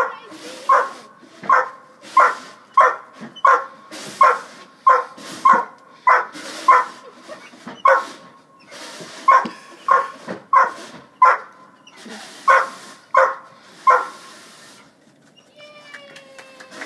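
German shorthaired pointer barking over and over, about one and a half barks a second, in excited play. The barking stops near the end, and a short falling whine follows.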